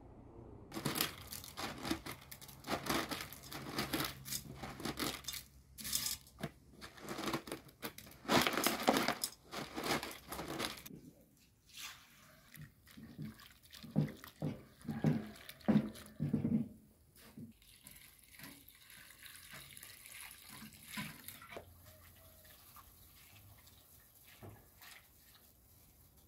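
Brittle dried zucchini strips rustling and crackling as they are handled and pressed into a steel pot. The sound is loudest in the first half and turns softer and more scattered after about 11 seconds.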